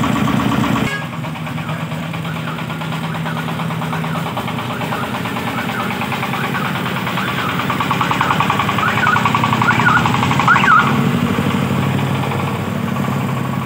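Engine of a công nông farm vehicle running steadily with an even, fast knock while it is test-run; the sound changes abruptly about a second in.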